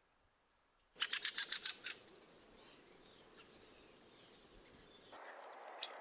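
A fieldfare's rapid chattering call: a quick run of about ten short notes lasting a second, starting about a second in. Faint high calls follow, and another short chatter begins right at the end.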